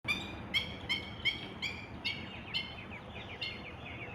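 Black-winged stilt calling: a quick series of sharp, yelping notes, about three a second, which turn fainter and quicker about two seconds in.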